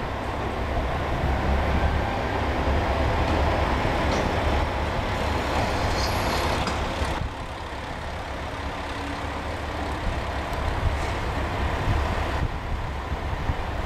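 KiHa 120 diesel railcar rolling slowly along the platform with its diesel engine running, over the steady low rumble of diesel engines. A brief high squeal about six seconds in, and a few sharp clacks near the end.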